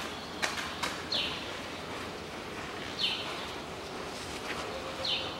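A small bird chirping: a short, falling call repeated about every two seconds over a steady background hiss, with two sharp clicks within the first second.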